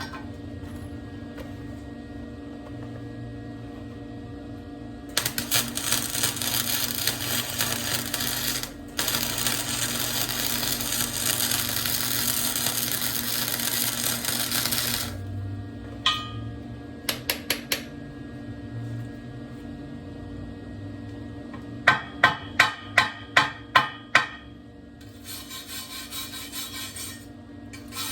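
Welding on a steel wheel rim: about ten seconds of dense crackling that breaks off briefly partway, with a steady hum under it. Then come a few clicks and a quick run of about eight hammer strikes on metal, then scraping.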